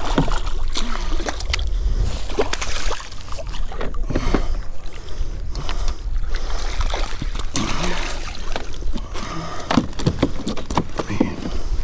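Speckled trout splashing beside a kayak as it is scooped into a rubber landing net and lifted aboard, with scattered knocks and splashes against the hull. A steady low rumble of wind on the microphone runs underneath.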